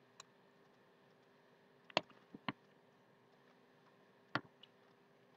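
Quiet eating with a fork: a handful of short, sharp clicks, a second or two apart, over a quiet room. The sharpest comes about two seconds in.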